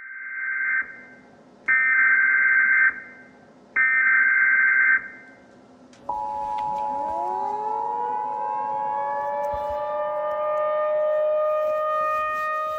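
Tornado-warning alerting: three short, loud electronic tone bursts, then a steady two-tone alert signal. About halfway through, a civil defense tornado siren winds up, rising in pitch and settling into a steady wail.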